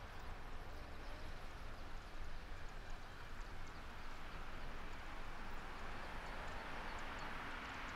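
Distant jet engine rumble from a twin-engine wide-body cargo jet starting its takeoff roll, a steady low rumble that builds slightly near the end. Faint rapid ticking sits high above it.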